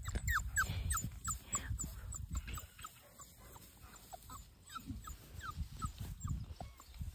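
Chocolate Labrador retriever puppy whimpering: a quick run of short high squeaks, each falling in pitch, over the first two or three seconds, then a few more after a pause.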